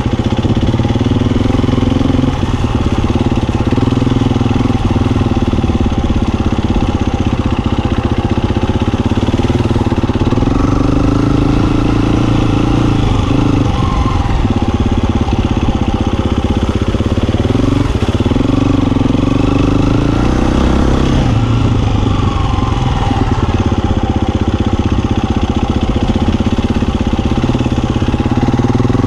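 Husqvarna FE350 four-stroke single-cylinder dirt bike engine running under way, its revs rising and falling as it is ridden.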